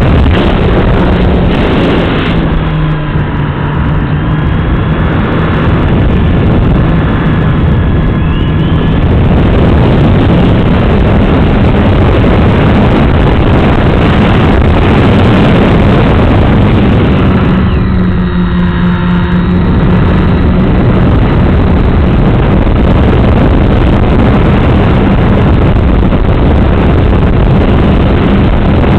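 Model airplane's propeller and motor, heard from a camera on board in flight: a steady droning buzz whose pitch shifts with the throttle, stepping up about ten seconds in, under loud wind rush over the microphone.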